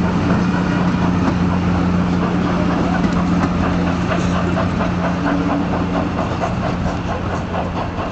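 Steady low drone of an idling train engine, with a faint quick rhythmic clatter between about three and seven seconds in.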